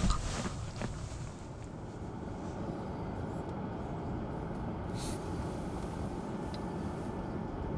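Steady low running noise of a car heard from inside the cabin, with a few faint clicks.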